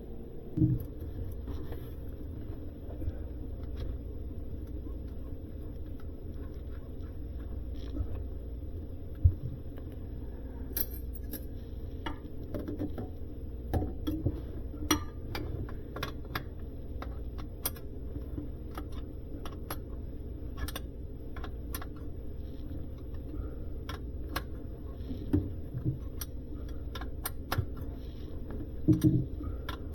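Scattered small metallic clicks and a few louder knocks from handling brass compression fittings and plastic tubing, over a low steady hum.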